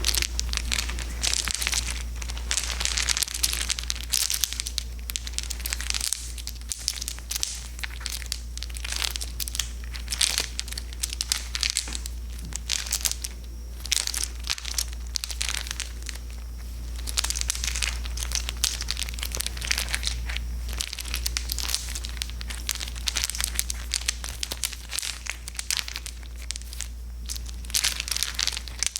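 A strand of Christmas tree lights being handled and strung: bulbs and wire clicking and rustling in a dense, irregular crinkle of small clicks, over a steady low hum.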